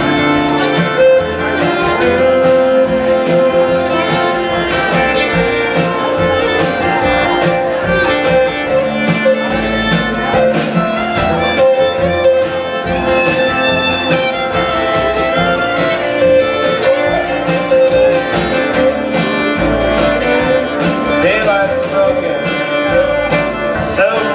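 Live folk band playing an instrumental passage: fiddle melody over strummed acoustic guitar, upright bass and electric guitar, in a country-bluegrass style with a steady rhythm.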